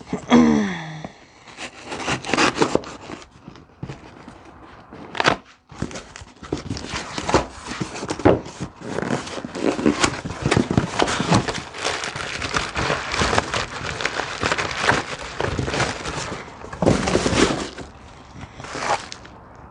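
A small cardboard product box and its packaging being opened and handled by hand: irregular rustling, crinkling and scraping with occasional light knocks, and a brief falling squeak in the first second.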